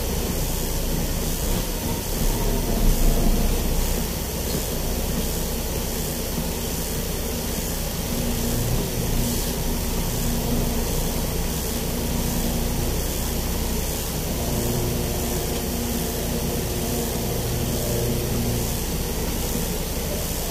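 Vehicle engine running, heard from inside the cab as it creeps along slowly: a steady low rumble.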